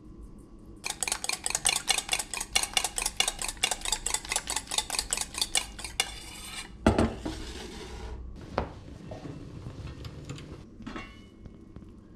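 Fork beating eggs in a stainless steel bowl: a quick, even run of metal clinks, about five or six a second, for about five seconds. Then a loud thump and some lighter clatter.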